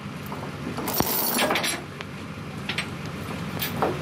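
Steel tow chain clinking and rattling several times as it is handled and hooked around a truck axle, over the steady low hum of an idling engine.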